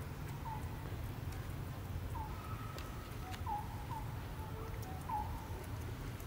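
Short, high animal chirps, each dropping slightly in pitch, about six of them scattered a second or so apart, over a steady low rumble.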